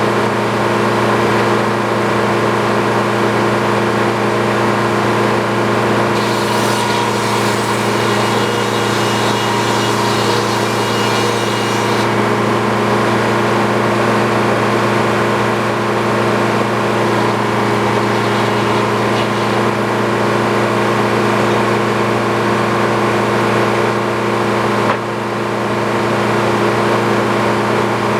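Sawmill engine running steadily at a constant speed, with an extra high hiss for several seconds near the start and a brief drop in level near the end.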